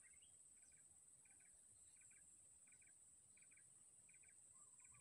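Faint ambience of insects: a steady high-pitched drone, with a short pulsed chirp repeating about every 0.7 seconds.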